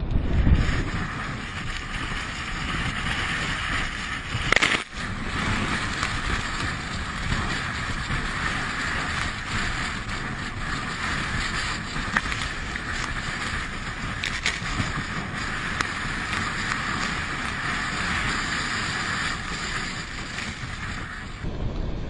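Stormy sea breaking and crashing on rocks, with strong wind on the microphone, a steady rushing noise. A single sharp knock about five seconds in.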